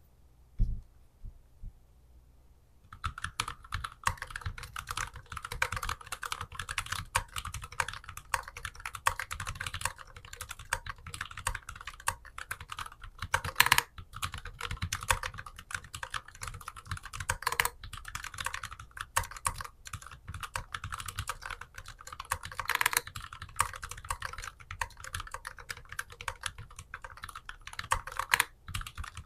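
Typing on a Keychron Q11 split mechanical keyboard with Gateron G Pro brown tactile switches: a steady run of fast keystrokes that starts about three seconds in, with a few louder strokes scattered through.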